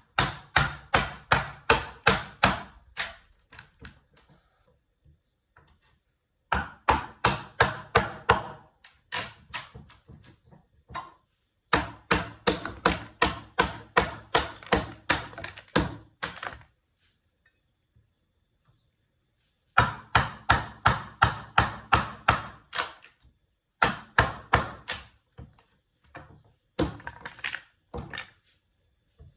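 Timber-framing chisel being struck in quick runs of blows, about four or five a second, chipping the waste out of saw-kerfed notches in a timber; each run lasts a few seconds, with short pauses between.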